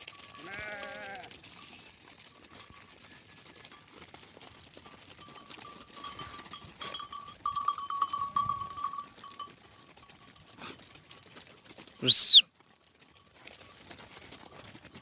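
Sheep and goats: a quavering bleat near the start, a steady high ringing tone that swells and pulses for a moment about eight seconds in, and a short, loud, high-pitched call about twelve seconds in.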